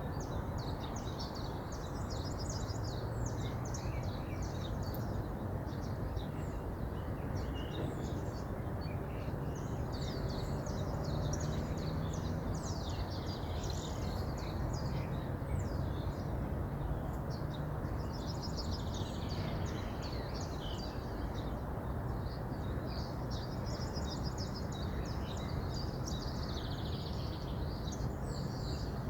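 River water running steadily, with many small birds chirping and singing over it.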